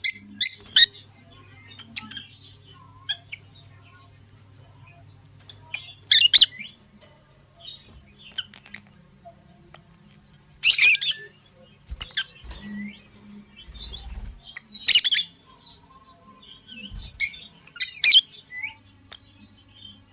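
A pair of lutino lovebirds chirping: loud, shrill chirps in short clusters every few seconds, with softer chirps and squeaks in between. A faint steady low hum sits under the first third.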